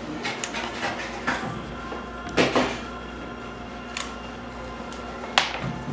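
Hot glue gun worked around the edge of a corrugated cardboard square: scattered small clicks and scrapes from the trigger and nozzle, with a louder knock about two and a half seconds in and a sharp click near the end.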